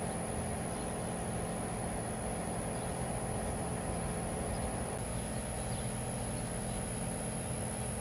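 Steady backyard ambience: a constant high-pitched insect drone over a low steady hum.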